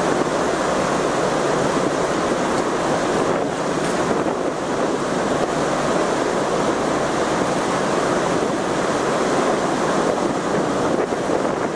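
Steady rushing of wind and water on the open top deck of a car ferry under way at sea.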